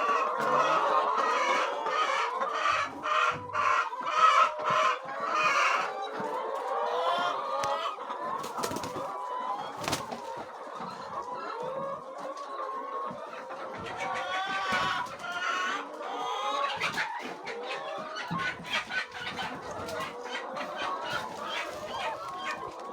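A flock of chickens clucking and calling together, with an occasional rooster crow.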